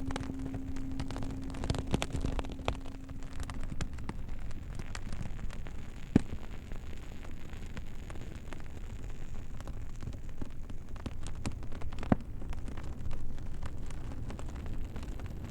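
Campfire crackling and popping over a steady hiss, with a low singing bowl's tone dying away in the first four seconds. Two sharper pops stand out, about six and twelve seconds in.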